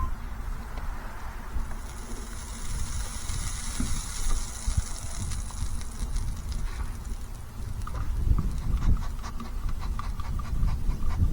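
Wind rumbling on the microphone, with a steady high hiss from about two seconds in and a run of quick crackles near the end.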